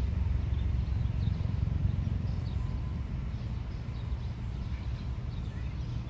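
Steady low outdoor rumble, with a few faint, short bird chirps high above it.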